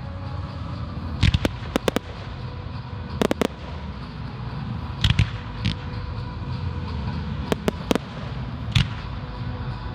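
Firework shells bursting in an irregular run of sharp bangs, some coming in quick pairs and clusters, over a continuous low rumble.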